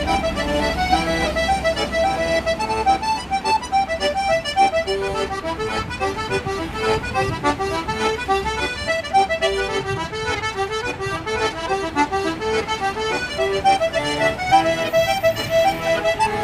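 Manfrini button accordion playing an Irish traditional reel: a quick, unbroken stream of short, bright notes over held chords.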